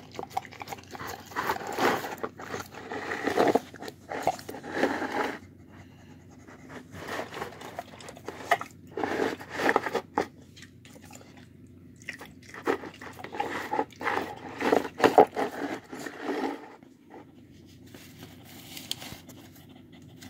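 Dog crunching and chewing food out of a plastic bowl, in bursts a few seconds long with short pauses between.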